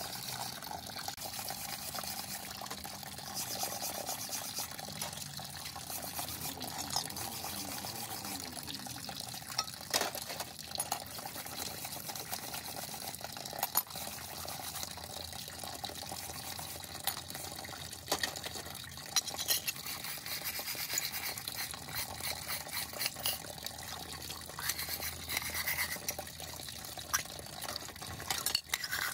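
Steel wire brush scrubbing rust off a wet metal saw part, a steady scratchy rasp broken by a few sharp knocks, with water sloshing in a tray at times.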